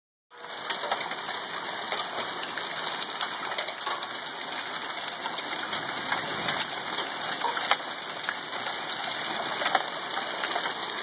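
Nickel-sized hail falling with rain: a steady hiss dotted with many sharp clicks as hailstones strike the ground and pavement.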